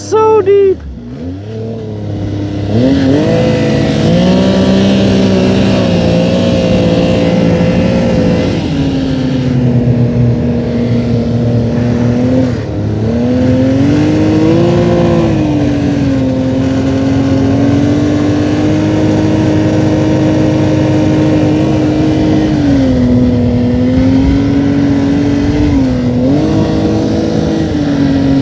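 Snowmobile engine running under way, its pitch rising and falling with the throttle. It picks up about three seconds in and then runs loud and fairly steady, with brief dips and surges in speed.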